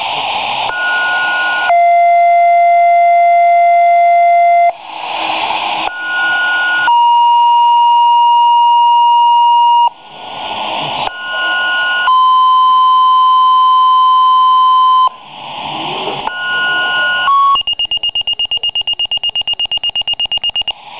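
Fire department two-tone paging alert received over a radio or pager. Each alert is a burst of static, then a short high tone of about a second, then a long steady tone of about three seconds; it comes three times, each with a different tone pair. A fourth short tone then gives way to rapid, even high beeping near the end, the receiver's alert sounding.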